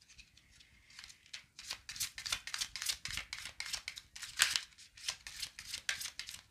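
A deck of tarot cards being shuffled in the hands: a quick run of crisp card snaps and flicks, several a second, starting about a second in, with one louder snap a little past the middle.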